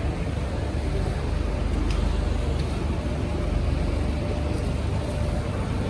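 Steady road traffic on a wet city street, cars and buses passing, with a heavy low rumble.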